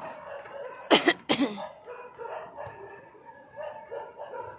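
Many dogs barking, with two loud barks close together about a second in.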